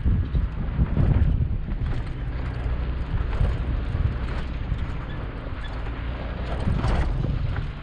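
A 4x4 truck's engine running steadily under way, with wind buffeting the microphone and a few short knocks, the clearest about a second in and near the end.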